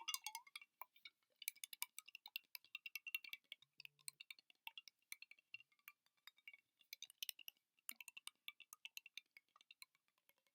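Soft, fast ASMR tapping on hard objects: rapid, irregular clicks in quick runs, thinning out briefly about four seconds in and again near the end.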